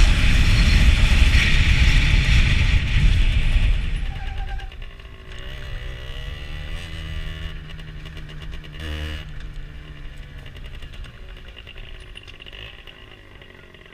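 Rieju SMX 50cc motorcycle riding, with a loud, even rushing noise for about the first four seconds. Then it drops to a quieter engine sound whose pitch wavers up and down.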